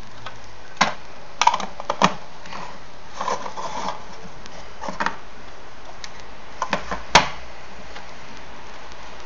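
Handling noises of a small metal tobacco tin: scattered clicks and light metallic knocks as the tin is closed and set down on a table, the sharpest knock about seven seconds in, over a steady hiss.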